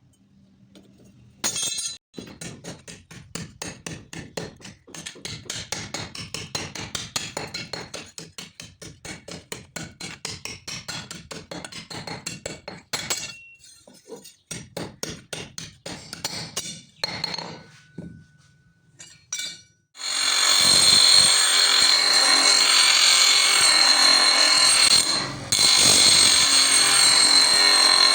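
Hammer blows on steel, several a second, as a motorcycle sprocket is forged into an axe. About twenty seconds in they stop and a power tool starts, running steadily with a high whine.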